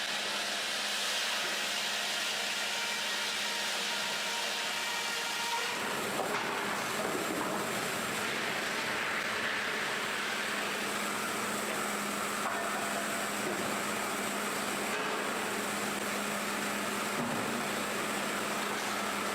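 Sawmill machinery running steadily, a constant low hum under a dense hiss of sawing noise. The sound changes abruptly about six seconds in.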